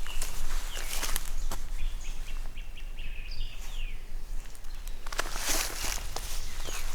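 Footsteps crunching through dry leaves and brush, which stop for a few seconds midway while a small bird gives a quick run of short high chirps, then start again near the end.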